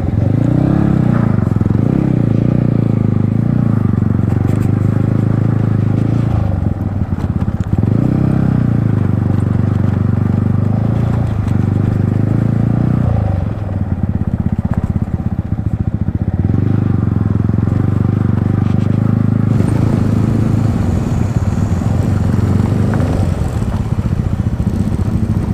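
Yamaha MT-15's single-cylinder engine with an Akrapovic exhaust, running at low revs while riding; its note drops and picks up again several times as the throttle is rolled off and back on.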